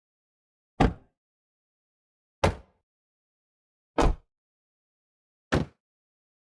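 Car door shut from outside the car, heard four separate times about a second and a half apart; each is a short, sharp thud that dies away quickly.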